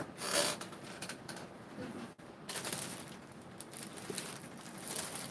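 Rummaging through a box of packaged costume jewelry: rustling of packaging with small scattered clicks and taps as pieces are moved about.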